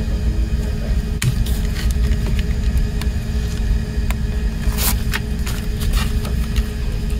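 Plastic CD jewel case being handled, with light clicks and taps and a sharper clatter a little under five seconds in as it is set down on the table, over a steady low rumble.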